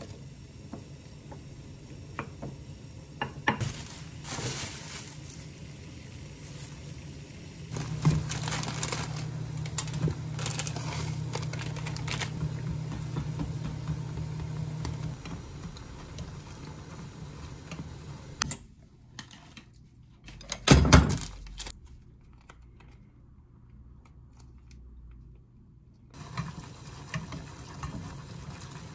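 Kitchen cooking sounds in short takes: a wooden spoon mixing corn salad in a glass bowl with light clinks, then instant noodles boiling in a pot and being stirred with wooden chopsticks. A steady low hum runs under part of it, and there is one loud knock about two-thirds of the way through.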